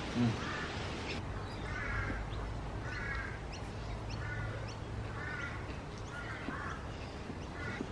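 A bird calling over and over in the garden, a short harsh call about once a second, seven or eight times.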